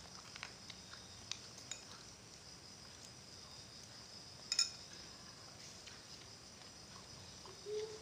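Metal spoon tapping and scraping against a glass bowl while eating soup: a few light scattered clicks and one sharper, briefly ringing clink about halfway through.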